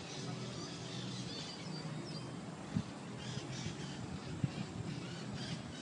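Outdoor riverside ambience with scattered short bird chirps and calls over a steady background hiss, and two brief knocks in the middle.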